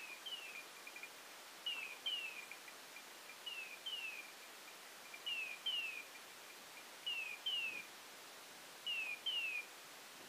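Hunting dog's electronic beeper collar sounding: pairs of short falling chirps, repeating evenly about every two seconds, the fast repeat that signals the dog is standing on point.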